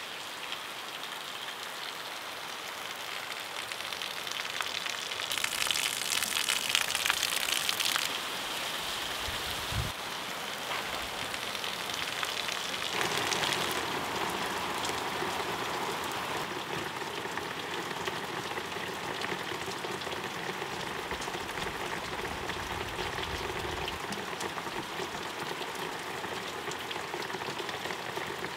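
Steady rain falling and pattering on surfaces. It grows louder and brighter for a few seconds and shifts in tone a couple of times, with one soft knock about ten seconds in.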